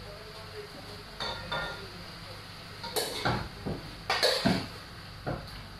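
A metal cooking pot and utensil clanking and clinking, a few separate knocks with brief metallic ringing, the busiest stretch a little past halfway.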